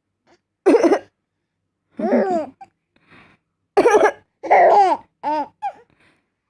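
Someone coughs twice, and a three-month-old baby answers each cough with bursts of laughter and squeals.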